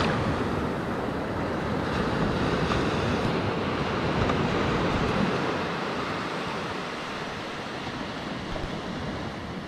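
Small waves washing in over shallow water and foam right at the microphone, a steady rush that eases slightly in the second half.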